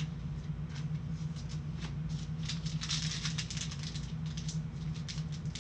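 Wrapper of a trading-card pack crinkling and rustling in gloved hands: a quick run of small crackles, thickest in the middle, over a steady low hum.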